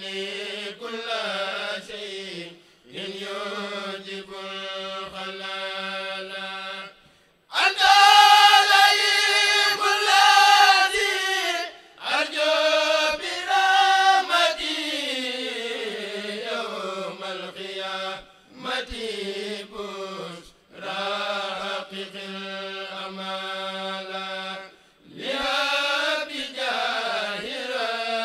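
A kourel, a group of Mouride men, chanting a khassida together unaccompanied, in long sustained phrases broken by short pauses for breath. One phrase about a third of the way in is louder and pitched higher than the rest.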